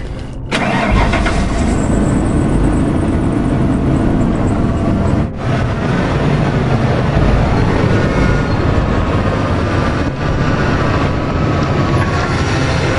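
Pickup truck engine running, loud and steady, with two brief dropouts where the sound cuts out, about half a second and about five seconds in.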